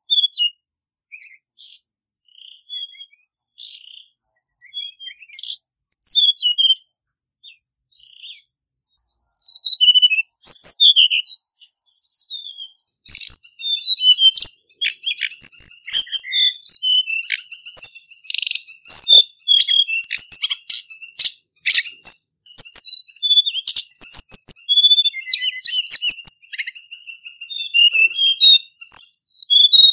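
Male hill blue flycatcher singing: phrases of quick, high, sweet whistled notes with short pauses between them. The song grows busier and more continuous about halfway through.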